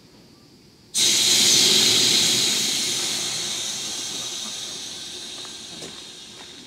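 EF65 electric locomotive releasing compressed air from its air system: a sudden loud hiss of escaping air that starts about a second in and slowly fades away.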